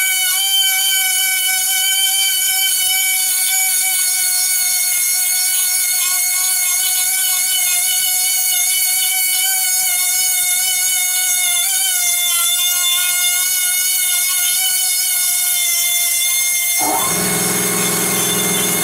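Micro air die grinder whining at high speed as its pink grinding stone works the bore of a steel tube, the pitch dipping briefly as the stone bites. About two seconds before the end the whine stops and a lower-pitched steady running sound takes over.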